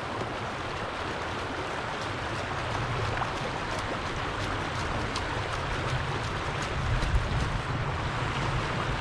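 Trout stream water rushing steadily, an even hiss, with a low rumble that grows from about three seconds in.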